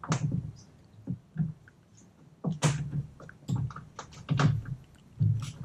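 A series of sharp knocks and low thuds, about two a second in the second half, after a quieter stretch.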